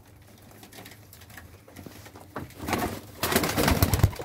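Domestic pigeons cooing in a wooden loft. About three seconds in, a pigeon takes off, with a loud, rapid flurry of wingbeats lasting about a second.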